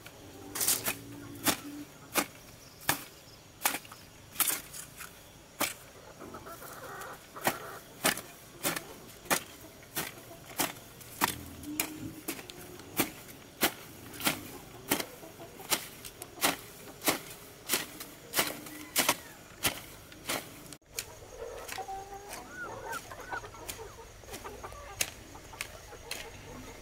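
A hoe striking into garden soil in a steady rhythm, a little more than one stroke a second. After a break about three quarters of the way in, chickens clucking.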